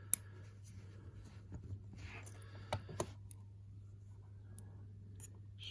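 Scattered small clicks and taps of tweezers and tiny brass lock pins, a spool pin among them, being handled and picked out of a gutted euro cylinder's pin chamber. One sharp click just after the start is the loudest, over a steady low hum.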